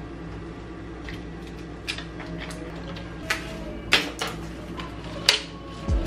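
Kitchen handling sounds: four or five short, light knocks as cauliflower florets and greens are set into a plastic tub and on the countertop, over a faint steady hum.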